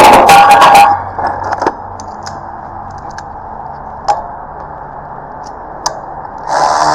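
A cordless power tool with a 13 mm socket runs briefly at the start and again for about a second and a half near the end, driving in the rear brake caliper bolts. A few light metallic clicks fall in between.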